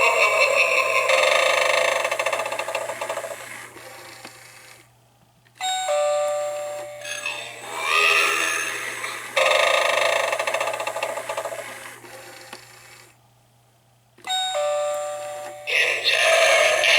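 Dasini animated eyeball doorbell playing its electronic sound clips through its small speaker. Each press gives a ding-dong chime followed by spooky sound effects that fade out, with two short silent gaps before the next press.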